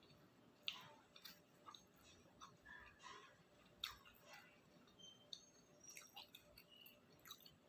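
Close-up chewing of octopus-filled takoyaki: soft, wet mouth sounds with scattered smacks and clicks, two sharper clicks standing out.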